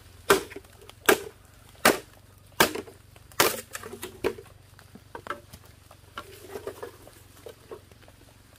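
Machete chopping a green bamboo pole: five sharp blows, about one every three-quarters of a second, then lighter knocks and the rattle of bamboo poles being shifted.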